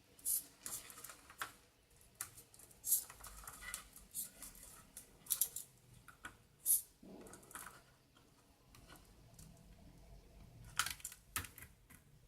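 Small, irregular plastic clicks and light rustling as a servo motor's cable plug is handled and pressed onto the pin header of a control circuit board.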